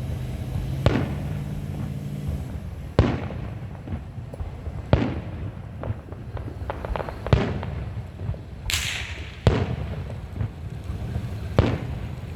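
Aerial fireworks display: six booming shell bursts about two seconds apart, with fainter crackling between them and a hissing burst about nine seconds in.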